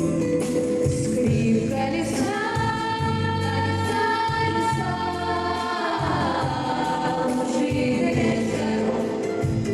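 Song with a long held wordless vocal, choir-like, that slides downward near the middle, over bass accompaniment.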